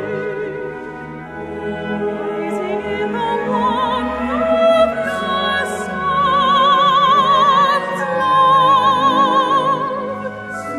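Classical music: a soprano singing long held notes with a wide vibrato over an orchestra.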